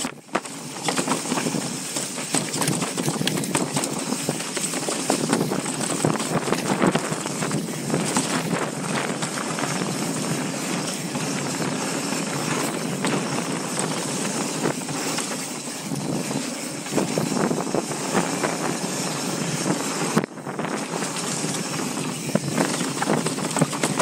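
Mountain bike riding fast down a rough dirt trail: a continuous rush of tyre and trail noise with frequent clattering knocks from the bike, briefly cutting out about twenty seconds in.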